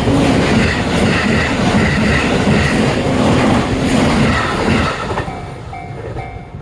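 Electric multiple-unit commuter train passing over a level crossing, its wheels clattering over the rail joints. About five seconds in the train noise fades, leaving the crossing's warning bell ringing in an even, repeating pattern.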